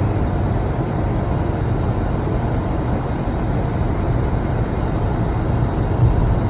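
Steady engine and road noise inside the cabin of a moving Mercedes-Benz, a low, even hum with no exhaust rasp, the muffler freshly repaired.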